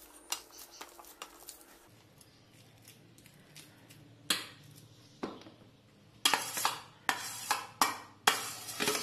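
Metal spoon scraping and clinking against a perforated stainless-steel steamer pot while mashing cooked banana. It starts with light taps, and from about four seconds in there are louder scrapes, coming in quick runs over the last three seconds.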